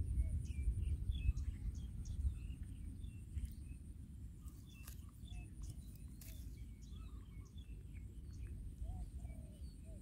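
Outdoor ambience of small birds chirping in short scattered calls, over a steady thin high-pitched buzz and a low rumble.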